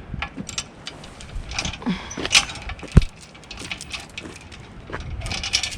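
Scattered metallic clinks and knocks of logging chains and a log arch being handled while a cherry log is unloaded, with one sharp heavy thump about three seconds in.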